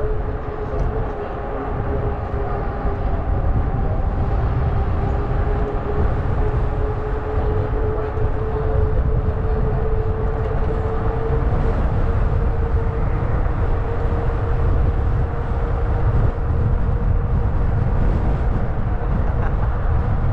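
Fat-tire e-bike riding along a trail: a steady hum whose pitch creeps slightly upward and then holds, over a constant low rumble.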